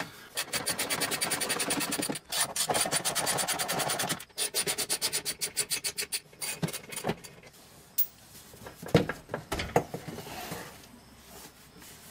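Ratchet with an 8 mm socket clicking rapidly as it spins out the bolts on a Mercedes-Benz SL500's engine splash guard. The clicking slows and thins out about four seconds in and stops about seven seconds in. A few knocks follow a couple of seconds later as the splash guard is handled.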